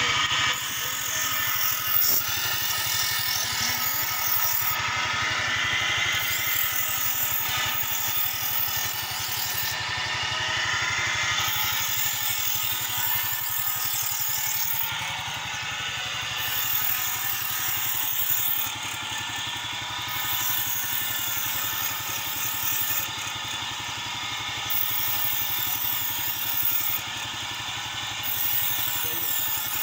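A 70cc single-cylinder four-stroke motorcycle engine running steadily, driving a belt-powered grinding wheel, while a steel knife blade is ground against the spinning wheel to sharpen it: a steady high grinding hiss over the engine hum, with brief breaks every few seconds as the blade comes off the wheel.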